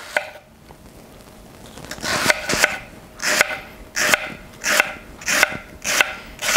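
A small, slightly serrated knife slicing straight down through a halved red onion onto a wooden cutting board. Starting about two seconds in, it makes a steady run of about seven cuts, each a short rasping crunch that ends in a tap on the board.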